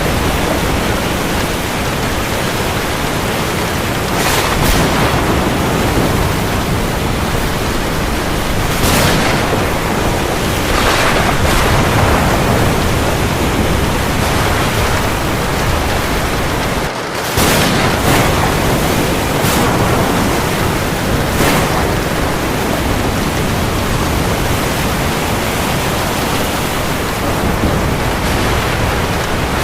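Heavy rain falling in a steady, dense hiss, with brief louder swells every few seconds and a momentary dip about seventeen seconds in.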